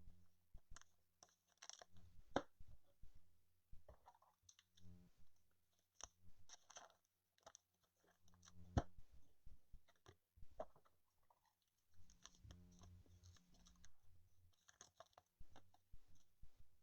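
Faint handling of trading cards being slid into plastic card sleeves: scattered light crinkles, rustles and clicks.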